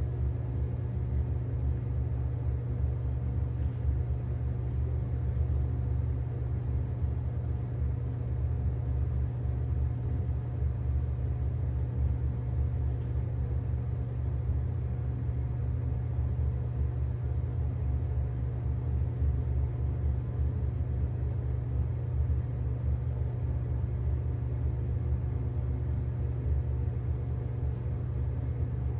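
Microwave oven running mid-cycle: a steady low hum and buzz that does not change.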